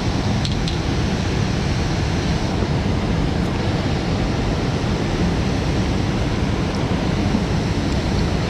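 Steady rush of water pouring out of a dam's outflow into the river, an even roar with wind buffeting the microphone.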